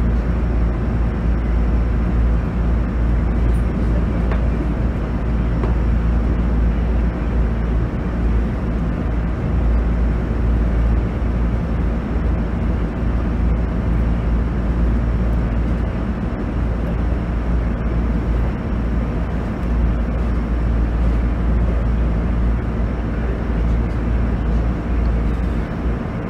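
GV-E400 series diesel-electric railcar running steadily, heard from inside the passenger car: the diesel engine's even drone over the rumble of wheels on rail.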